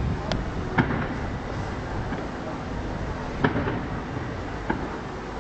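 Aerial fireworks bursting: a string of sharp bangs, three in the first second and a few more at about three and a half and almost five seconds in, over a steady background noise.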